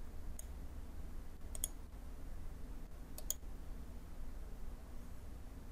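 Computer mouse clicking: a faint click, then two sharper doubled clicks about a second and a half apart, over a faint steady low hum.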